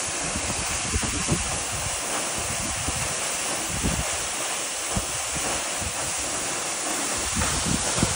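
Waterfall rushing in a steady, even hiss, with occasional low bumps of wind buffeting the microphone.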